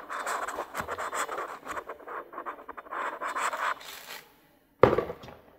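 Hands rubbing and scraping on a foam microphone windscreen fitted to a BM-800 condenser mic, a rustling scratch with many small clicks. It stops near the end, and a single sharp knock follows.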